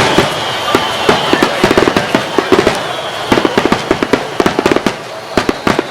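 Starmine fireworks display: a rapid string of sharp shell bursts and bangs, dozens in a few seconds, coming in thick clusters with short lulls between.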